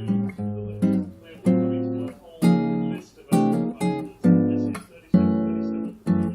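Guitar strummed in chords, about one or two strokes a second, each chord ringing and fading before the next.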